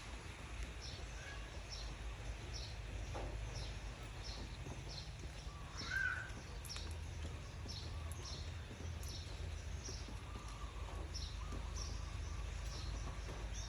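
Outdoor ambience: a short high chirp repeats steadily, about every half second to second, over a low steady rumble. One louder brief call comes about six seconds in.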